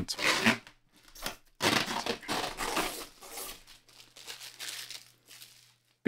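Thin protective plastic film being peeled off a glossy plastic front panel: a crinkling, tearing rustle in several pulls, loudest from about one and a half to three seconds in, then trailing off.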